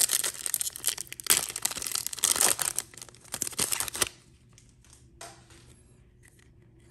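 Foil wrapper of a Panini Prizm football card pack being torn open and crinkled, a dense crackling that stops suddenly about four seconds in. After that only a few faint ticks of the cards being handled.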